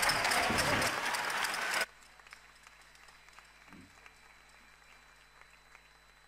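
Audience applauding, a dense patter of clapping that cuts off suddenly about two seconds in, leaving only a faint steady hum.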